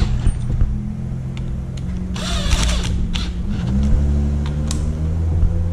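Cordless drill/driver turning slowly and carefully, driving small screws into the plastic transmission housing of an RC monster truck. Its motor hum drops lower a little under four seconds in, with scattered clicks.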